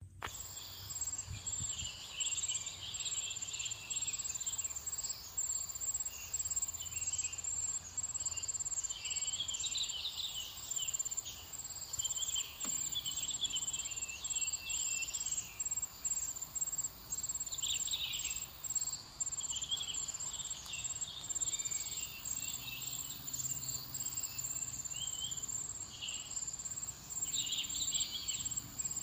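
Insects trilling in a rice paddy: a steady, high, finely pulsing buzz, with bursts of chirping coming and going.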